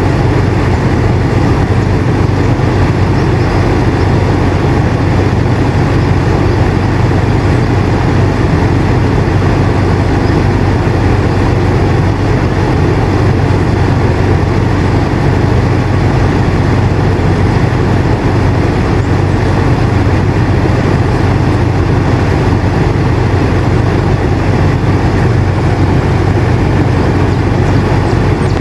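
Air conditioner running steadily: a constant low hum with an even rush of airflow noise over it, unchanging throughout.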